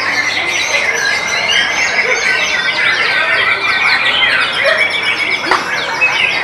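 White-rumped shama singing in its contest cage, its whistles and chirps overlapping with a dense chorus of other caged songbirds that never lets up.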